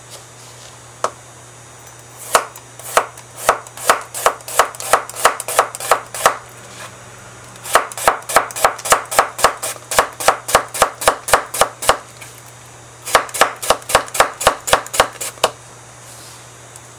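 Kitchen knife slicing a cucumber into thin rounds on a cutting board: quick, even knocks of the blade on the board, about four to five a second, in three runs with short pauses between them, after a single knock about a second in.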